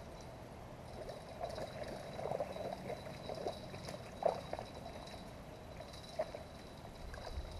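A hooked catfish splashing and thrashing at the water's surface as it is reeled in to the bank: a run of irregular splashes lasting a few seconds.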